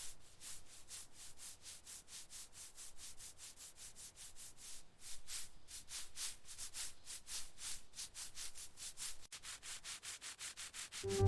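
Faint, fast rubbing strokes on a surface, about five a second, in a steady rhythm.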